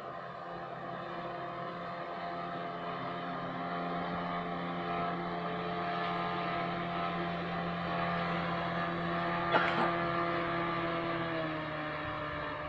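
Small boat's outboard motor running steadily at speed as the boat passes, its pitch dropping slightly near the end. A brief sharp knock about three-quarters of the way through.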